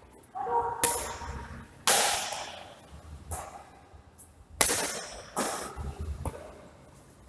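Badminton rackets striking a shuttlecock in a rally, a series of sharp hits about once a second, each ringing out in the large echoing hall.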